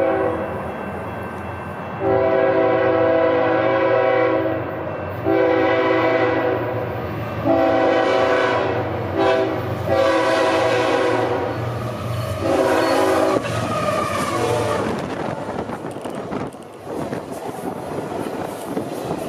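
BNSF diesel locomotive's air horn, a chord of several notes, gives a brief toot and then a string of long blasts of about two seconds each over roughly ten seconds, over the low rumble of the engines as the train comes in. From about fifteen seconds on, the horn has stopped and the stainless-steel passenger cars roll past with a steady rumble and clatter.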